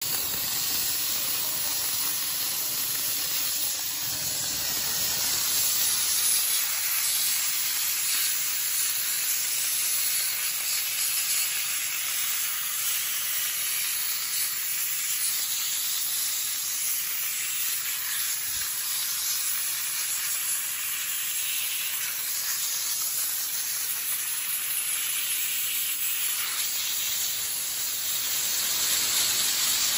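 OLT-P60 dry ice cleaning machine's blast nozzle hissing steadily, a jet of compressed air and dry ice spraying onto a computer circuit board to clean it.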